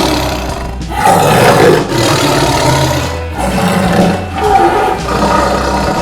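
Tiger roaring in several loud, rough calls, the loudest about a second in, with more about four seconds in.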